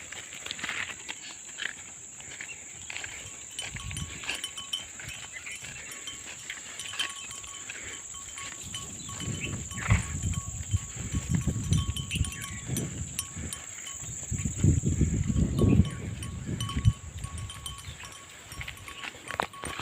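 Sheep bleating, with bell-like clinks and clicks throughout. A heavier low rumble comes in about halfway through and lasts until near the end.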